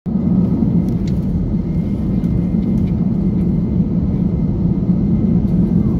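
Inside the cabin of an Airbus airliner taxiing, its jet engines and cabin air give a steady low drone, with a few faint ticks in the first few seconds.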